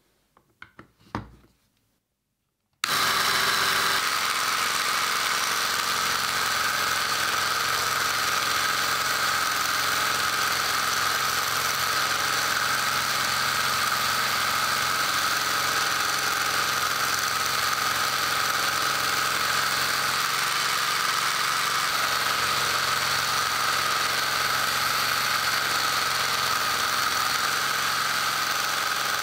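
A few small clicks from an XT60 power plug being pushed in. Then, about three seconds in, a 3D-printed mini belt sander driven by a 24 V DC 775 motor comes in suddenly and runs steadily with a high whine, a piece of wood held against its sanding belt.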